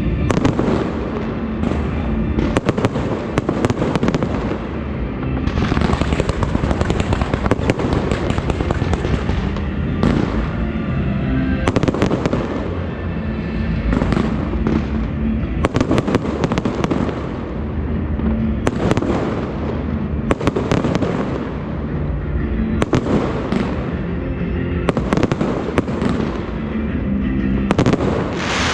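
Fireworks bursting and crackling nonstop, many sharp bangs piling on one another with louder bursts every second or two.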